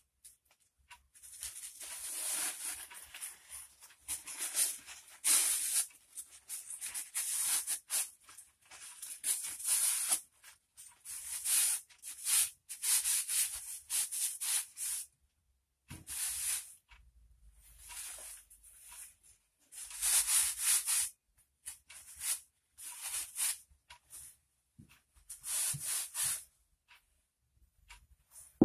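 A cloth rubbing over a wet, rusty steel piece just taken out of an electrolysis bath, in repeated wiping strokes with short pauses between them: loosened rust and residue being wiped off.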